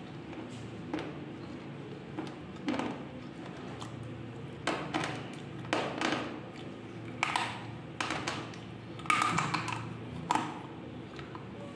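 Slate pencils being bitten and chewed: a string of short, dry crunches, about one every second or so, with the loudest cluster about nine seconds in.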